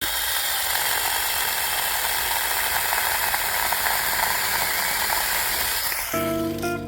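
Cordless battery-powered chainsaw running steadily, with a mostly high-pitched sound. Music comes in near the end.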